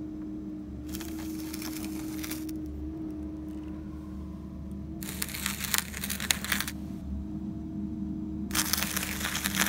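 Three spells of crunching and crackling, each about a second and a half long, as a steel cable drags a pipe-bursting head through an old water service line and gravelly soil. A steady low machine hum runs underneath.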